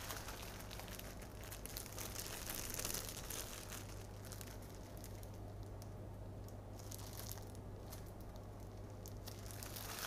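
Clear plastic bags filled with cooked sticky rice crinkling and rustling as they are handled and lifted, busiest about two to three seconds in, over a steady low hum.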